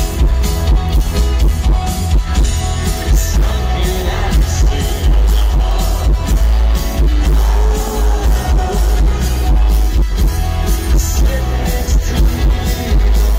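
Live rock band playing loud through a stadium PA, with electric guitars, drums, heavy bass and a singing voice, heard from within the crowd.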